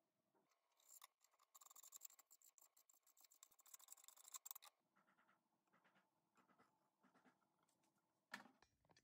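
Faint, fast taps of a chef's knife slicing a thin egg crepe into strips on a plastic cutting board, a quick run of light knocks for about four seconds, then slower, sparser taps. A brief louder noise comes near the end.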